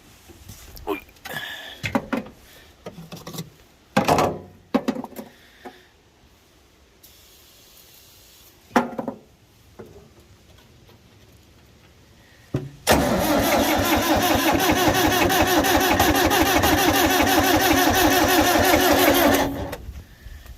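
A few scattered clunks and knocks, then about thirteen seconds in, the cold International TD5 bulldozer's diesel engine is cranked over for about seven seconds with a fast, even pulse. It does not catch and the cranking dies away near the end.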